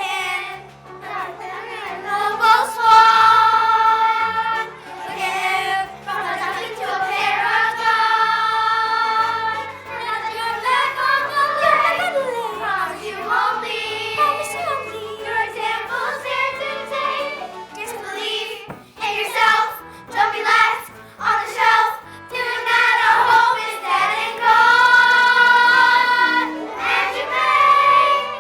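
A chorus of young voices singing a stage-musical number with instrumental accompaniment, holding several long notes.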